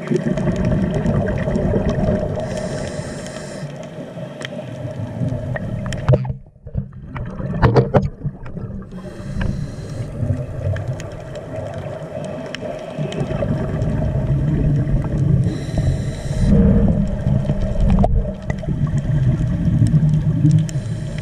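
Muffled underwater noise through an action camera's waterproof housing: a steady low rumble with water gurgling and sloshing. It drops out briefly about six seconds in, and a few hissing patches about a second long come and go.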